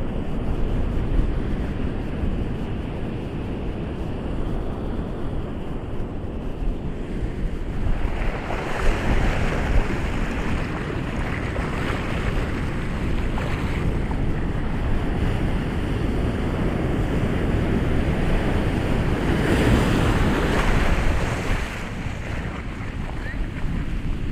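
Ocean surf: a steady low rush of water, swelling twice into a louder hiss as waves break and wash in, about eight seconds in and again near the end.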